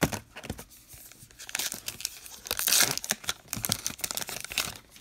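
A 2019 Topps Allen & Ginter trading-card pack being torn open by hand, the wrapper crinkling and rustling as the cards are pulled out. The loudest tearing comes about halfway through.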